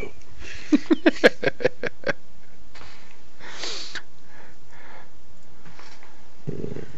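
A man's quick, breathy chuckle, about eight short pulses in a second and a half, followed a couple of seconds later by a sharp breath through the nose.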